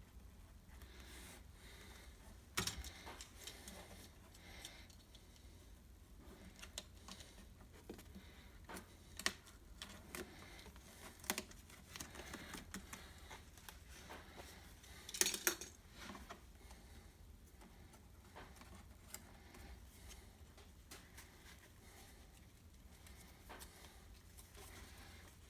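Faint, scattered light clicks and taps of hands pressing a rubber window-trim seal onto the plastic edge of a car heater box. A short cluster of clicks about fifteen seconds in is the loudest.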